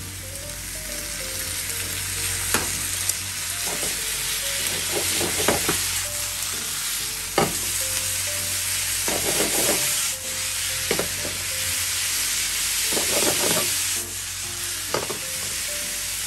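Yakisoba noodles and vegetables sizzling steadily in a frying pan as freshly added sauce cooks in, while chopsticks toss them, tapping and scraping against the pan every second or two.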